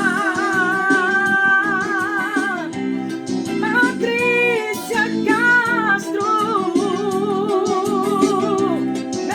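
Music: a voice holding long notes with vibrato over guitar accompaniment, without clear words.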